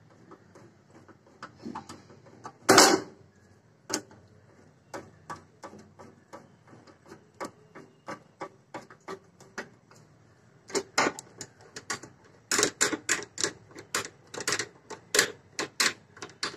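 Small screwdriver tightening the screws of a motor starter's enclosure door: a series of sharp clicks and ticks from the tool working in the screw heads, with one loud knock about three seconds in, and the clicks coming louder and quicker, about two to three a second, in the second half.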